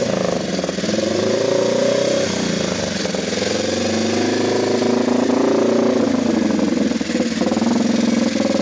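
Manx Norton single-cylinder racing engine running just after a roller start, its revs rising and falling repeatedly under the throttle.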